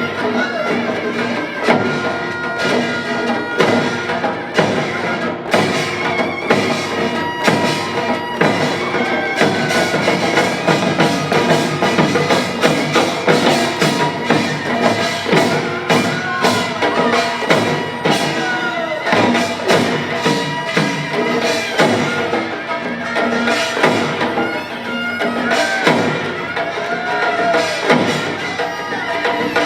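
Korean traditional pungmul ensemble music played live: steady drum and percussion strokes under a melodic line with sliding, bending notes.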